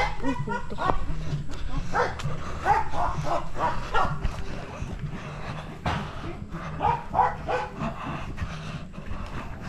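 Dog barking and yipping in short calls, a cluster about two seconds in and another about seven seconds in, over a steady low rumble.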